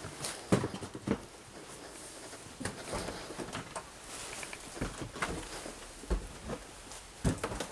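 Footsteps on grit-covered stairs: irregular scuffs and crunches, with a few heavier thuds in the second half.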